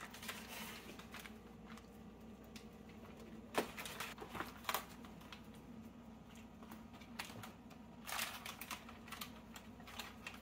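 Scattered light taps and clicks of basting: a silicone brush dipped in a small metal bowl and dabbed over fish in a foil-lined pan. A busier run of clicks comes about eight seconds in, over a faint steady low hum.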